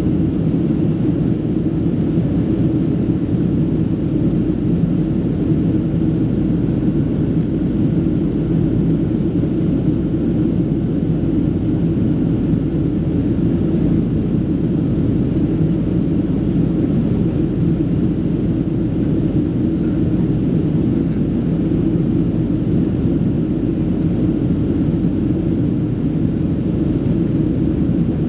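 Steady cabin noise of a Boeing 737-800 in flight, heard inside the cabin: the CFM56-7B turbofan engines and the rushing airflow make a constant low-pitched rumble that does not change.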